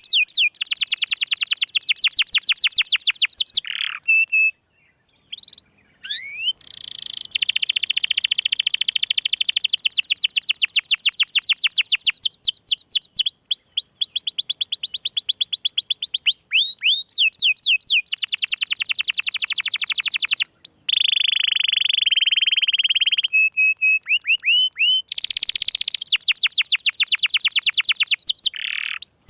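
Domestic canary singing hard in long, fast trills of rapidly repeated high notes, with a brief break about five seconds in and a held buzzy roll a little after twenty seconds.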